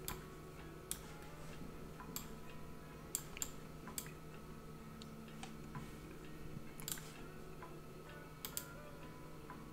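Faint, scattered clicks of a computer mouse, about a dozen, some in quick pairs, over a low steady hum.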